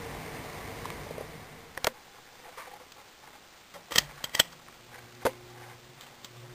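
Ceiling fan with an Emerson K55 motor running with a steady whoosh that falls away after a sharp click about two seconds in. A few more sharp clicks follow, then a low steady motor hum begins near the end.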